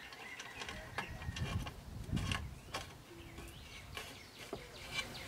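Scattered small metallic clicks and taps from fitting the washer and wing nut onto the Ryobi 9-inch bandsaw's tabletop mount, with a low handling rumble about a second or two in.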